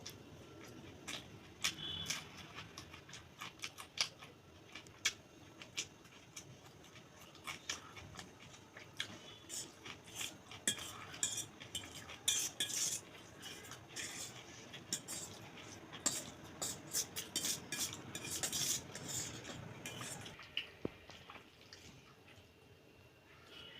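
Metal cutlery clinking and scraping against a plate while food is eaten: many quick small clicks that crowd together in the middle and thin out near the end.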